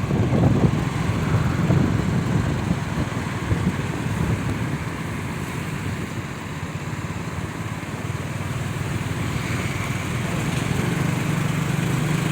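A steady low buzzing drone over a noisy background rush, dipping slightly in the middle and growing a little louder near the end.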